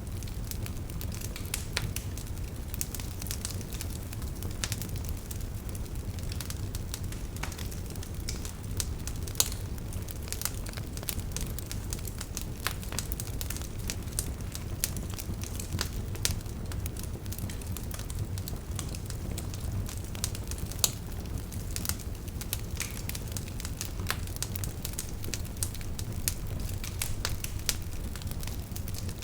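Wood fire burning in a fireplace: a steady low rumble of flames with frequent sharp crackles and pops scattered throughout.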